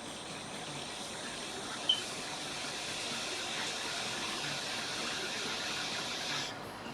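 Hot air rework station blowing a steady hiss as it heats a component off a donor iPhone logic board, cutting off suddenly about six and a half seconds in. A brief high blip about two seconds in.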